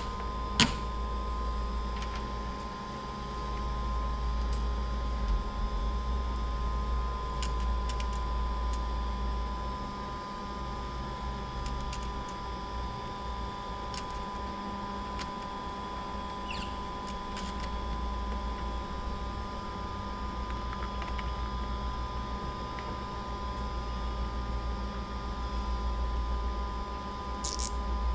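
Light clicks and taps of hands and a tool working on heavy red battery cable lugs at a busbar terminal, scattered every few seconds. Under them runs a steady low hum with a steady high-pitched tone.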